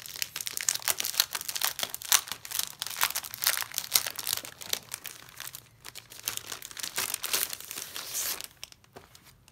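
Clear plastic packaging sleeve crinkling as a pack of scrapbook papers is unwrapped and slid out, a dense crackle that dies down about a second before the end.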